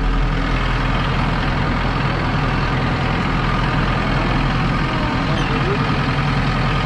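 Tractor engine running steadily while grading a gravel driveway.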